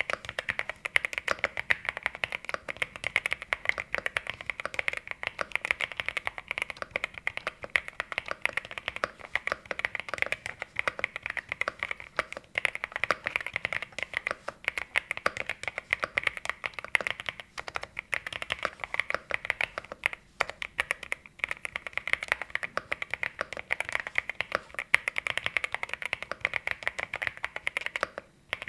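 Continuous fast typing on a CIDOO V65 aluminum-case mechanical keyboard fitted with Carda switches: a dense run of keystroke clacks with a short pause near the end.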